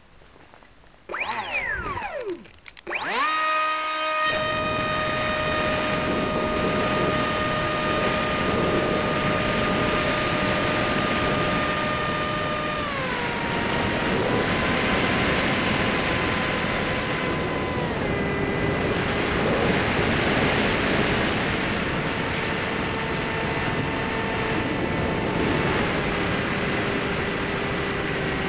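Skysurfer (Bixler) RC plane's electric motor and pusher propeller. It whines up and down in pitch briefly, then runs steadily at flying throttle under a rush of wind noise, dropping to a lower pitch twice as the throttle is eased back.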